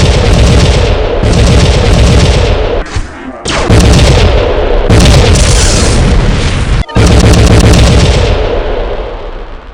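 Explosion sound effects spliced one after another: loud, rumbling blasts that each start abruptly, with fresh ones about three and a half and seven seconds in, the last fading out near the end.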